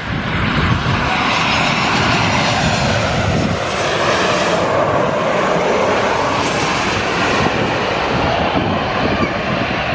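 Jet airliner flying low on its landing approach, a loud steady engine roar whose tone shifts slowly as it passes.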